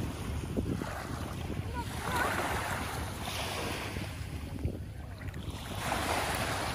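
Small waves washing up on a sandy beach, the wash swelling twice, under steady wind buffeting the microphone.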